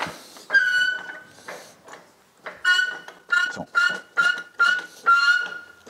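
Dry rear drive line of a chain-driven race car squeaking as it turns: one longer squeak, then a run of short, even squeaks about three a second. The squeak is the sign of parts that need oil.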